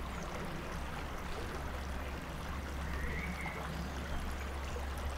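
Spring water trickling and flowing steadily over stone, over a low steady rumble.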